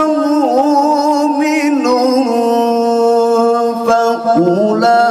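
A man reciting the Qur'an in the melodic tilawah style into a microphone, holding long, ornamented notes. There is a brief break about four seconds in, and a new phrase begins near the end.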